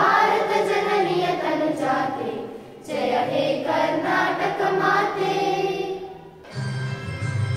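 A children's choir sings in unison in two phrases, with a short breath break between them. Near the end the sound cuts abruptly to different, steadier music.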